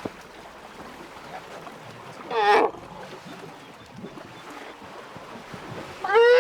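Young African elephants trumpeting at a waterhole: a short, high call about two and a half seconds in and a longer one starting near the end, over the splashing of water.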